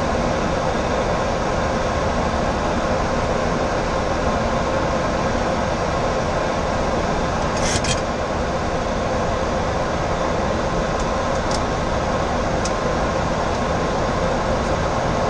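Steady rushing flight-deck noise of a Boeing 737-800 on final approach: airflow over the nose and windscreen mixed with air-conditioning, a faint steady hum beneath it. A brief double click comes about halfway through.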